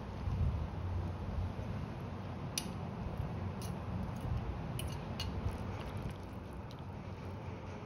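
A fork clinking and scraping against a frying pan and a bowl a few times as noodles are lifted from one to the other, over a steady low hum.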